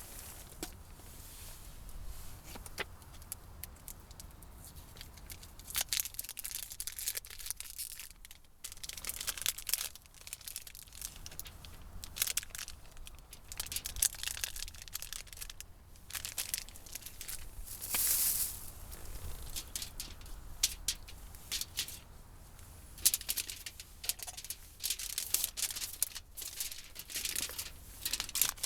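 Irregular crinkling and rustling, like packaging being handled or torn, broken by sharp clicks and taps.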